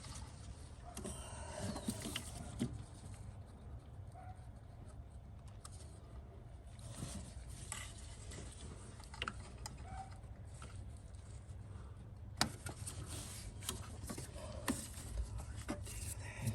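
Scattered light clicks and knocks of hands and tools working on parts in an engine bay, over a low steady hum.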